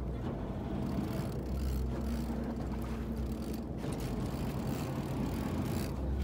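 Boat engine running steadily with a low hum, under a constant hiss of wind and water.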